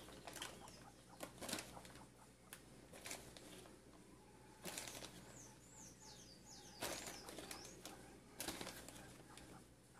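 Quiet handling sounds of a metal spoon scooping powdered white grout cement from a plastic bag into a steel bowl: soft rustles and scrapes, with a few short crinkling bursts from the bag. A quick run of faint, high bird chirps about halfway through.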